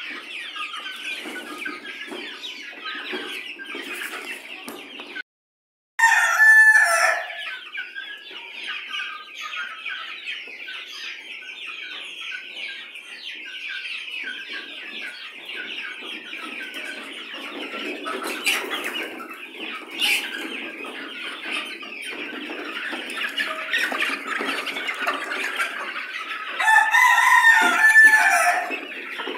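A flock of chickens clucking and chattering without a break. A rooster crows loudly about six seconds in and again near the end. The sound cuts out for about half a second just before the first crow.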